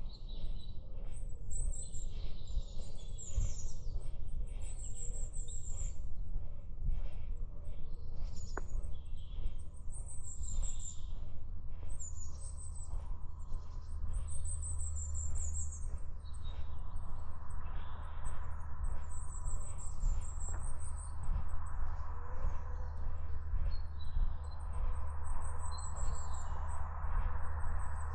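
Small woodland songbirds singing and calling in very high, thin phrases, repeated every second or two, over a steady low rumble.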